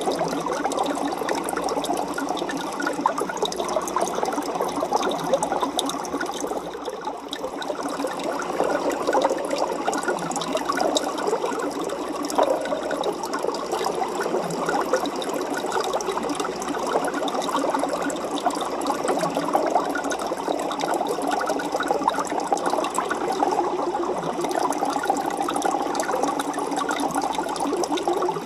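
Steady bubbling and trickling of aquarium water, a dense crackling stream with no change in level.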